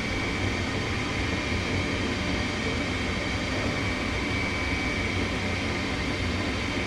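Gas furnace running with a steady, even rushing noise, its burners staying lit now that the dirty flame sensor has been cleaned.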